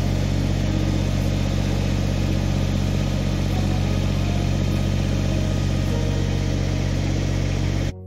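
Kubota BX25's three-cylinder diesel engine running steadily at an even speed.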